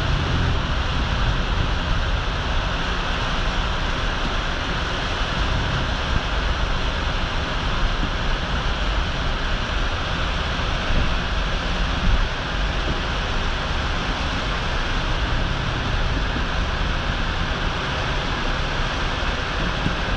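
Steady rushing noise of water falling at the base of a natural-draft cooling tower, under a low rumble of wind on the microphone. A brief louder bump comes about halfway through.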